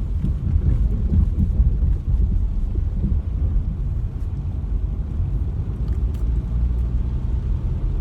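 Low, steady rumble of a car driving, heard from inside the cabin: engine and road noise.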